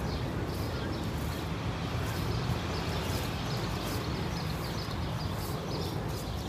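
Outdoor ambience: small birds chirping over and over above a steady low rumble.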